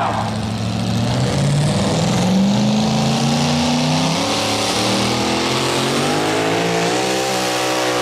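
Supercharged engine of a pulling pickup truck running hard under load. Its pitch climbs over the first couple of seconds, holds, then rises again near the end.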